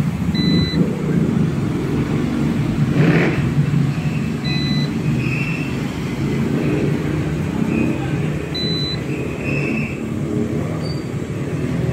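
Ink-tank inkjet printer printing a colour test page: a steady motor whir from the print-head carriage and paper feed, with short high whines recurring about every four seconds.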